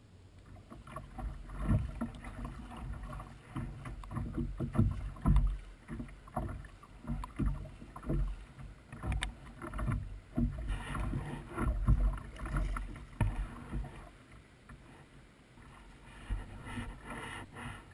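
Water sloshing and slapping against a plastic sit-on-top kayak's hull, heard through a camera mounted on the kayak, in irregular knocks and splashes one or two a second.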